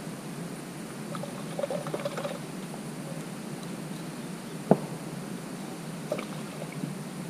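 Hand handling wet yellow bait mix in a plastic bowl: faint wet sounds and small clicks, with one sharp click a little before five seconds in, over a steady outdoor hiss.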